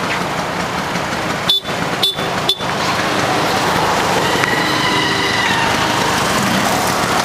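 Steady din of busy street traffic and engines heard from a moving auto rickshaw, with a vehicle horn honking for about a second around the middle.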